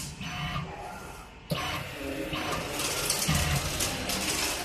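Automatic nut-tightening machine running its cycle: the servo screwdriver spindle driving nuts with a mechanical ratcheting clatter. A loud hiss starts sharply about one and a half seconds in and lasts nearly two seconds.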